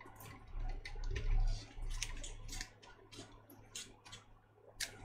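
Football trading cards being flipped through and handled on a stack: light, irregular clicks and taps of card edges, several a second.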